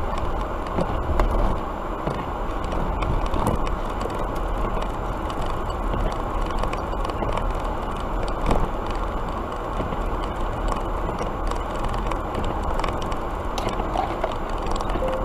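Steady road and engine noise heard from inside a moving car, a low even rumble with a few faint clicks.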